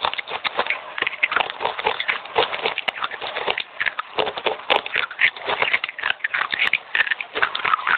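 Fast, wet crunching and chewing of red clay chips, a dense run of irregular crackles.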